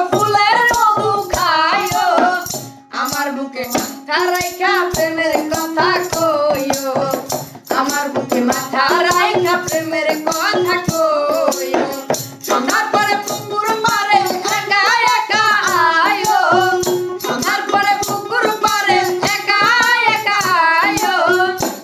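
A woman and a boy singing a Bengali folk-style song together over backing music with a steady percussion beat.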